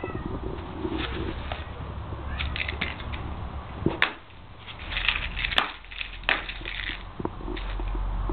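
Stoat scrabbling and rustling about inside a plastic laundry basket, with scratches and a few sharp clicks of its claws on the plastic, busiest from about two to seven seconds in.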